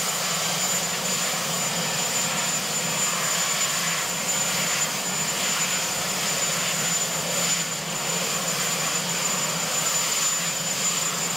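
Marine One, a Sikorsky VH-3 Sea King helicopter, running on the ground: a steady high turbine whine over a continuous rushing engine noise.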